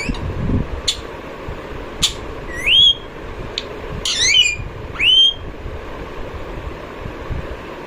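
Green ringneck parakeet giving a series of short whistled calls, each rising sharply in pitch, with a few sharp clicky notes between them; the calls stop a little past halfway.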